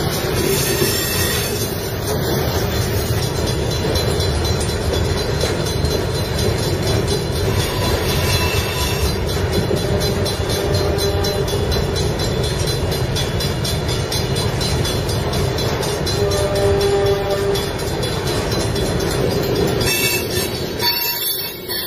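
Freight train of loaded flatcars rolling past, a steady rumble of wheels on the rails. A brief squealing tone rises out of it about three-quarters of the way through.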